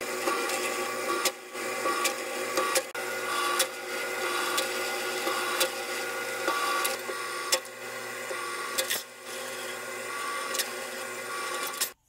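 Jeweller's rolling mill running, its steel rollers turning with a steady mechanical whir and a sharp click every second or so as a silver sheet is pressed between them; the sound cuts off suddenly at the end.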